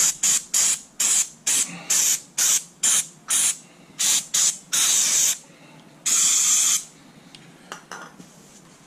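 Aerosol can of electrical cleaner-lubricant spraying onto an electric window motor's armature and copper commutator: about a dozen short spurts in quick succession, then two longer ones.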